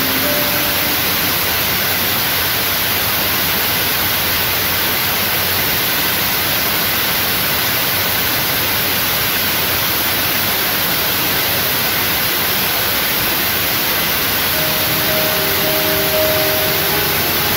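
A loud, steady hiss of noise that does not change, with faint tones coming in near the end.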